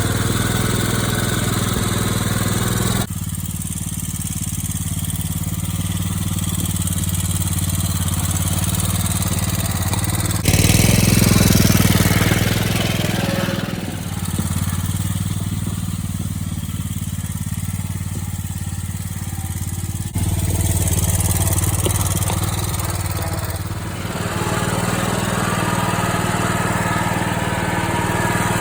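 Riding lawn mower engine running steadily as the mower is driven, in several spliced clips: the sound jumps abruptly about 3, 10, 20 and 24 seconds in, and is loudest for a few seconds from about 10 seconds in.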